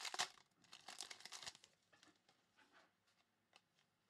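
Shiny foil wrapper of a Recon basketball card pack being torn open and crinkled, in a few short rustling bursts over the first second and a half, then near silence.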